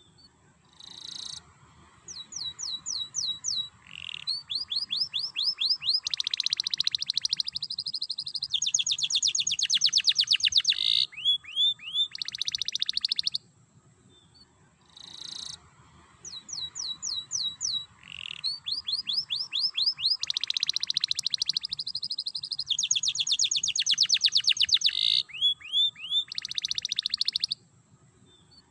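Domestic canary singing: two long song bouts of fast trills and rapid runs of rising notes, each lasting about twelve seconds, with a short pause between them. The second bout is nearly the same as the first.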